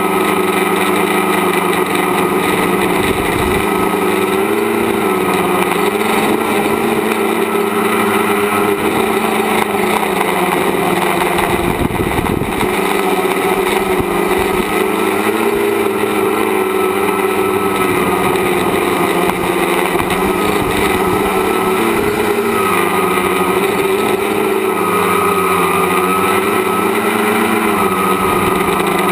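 A tricopter's electric motors and propellers making a steady whine, heard from the camera on board the craft. Their pitch wavers up and down several times as the craft flies.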